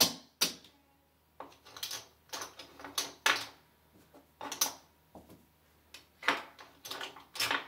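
Casino chips clicking and clacking as they are picked up, stacked and set down on a craps table, with the dice handled among them: a string of irregular sharp clicks.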